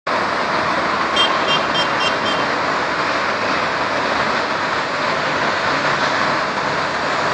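Steady wash of sea waves on the shore mixed with road traffic. A quick run of short high beeps comes about a second in.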